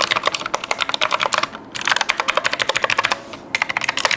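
Fast typing on a Fantech Atom 96 full-size mechanical keyboard with clicky blue switches: a rapid run of key clicks, broken by two short pauses.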